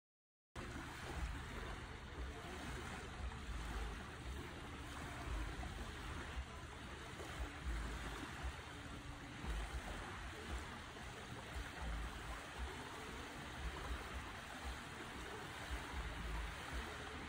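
Wind rumbling and buffeting on the microphone over a steady outdoor rush of air; it starts abruptly about half a second in.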